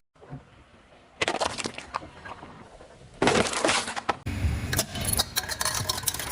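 Objects cracking and crunching as a car's tyre rolls over them: a burst of crackling about a second in, a louder crunch around three seconds in, then a low rumble with many sharp snaps and cracks.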